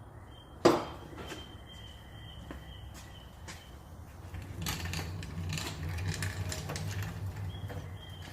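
A sharp knock about a second in, then scattered light clicks and clatter of hand-handled metal parts. Over the second half a low hum and a hissy haze swell up.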